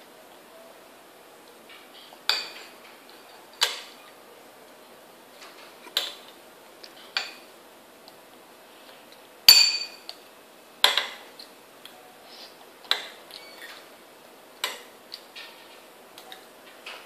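Metal spoon clinking and scraping against a small bowl as a toddler eats: about a dozen separate clinks at irregular intervals of a second or two, the loudest about nine and a half seconds in.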